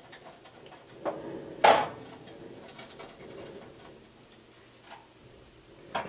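Ratchet wrench clicking in short runs as it is worked on the 1 1/16 hex head of a water heater's anode rod to unscrew it, with two knocks about a second and a half in, the second one loud.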